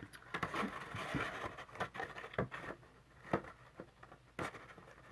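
Cardstock box lid being worked back onto a papercraft box: paper scraping and rustling, with scattered light taps.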